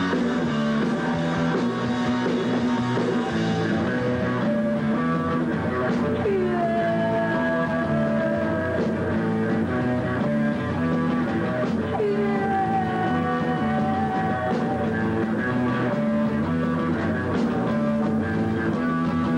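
Punk rock band playing live: distorted electric guitar, bass and drum kit in an instrumental passage, with two long held guitar notes that bend in pitch.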